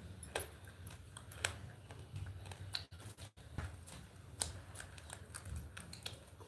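Faint, scattered clicks and ticks, roughly one a second, over a low steady hum. The sound cuts out briefly twice near the middle.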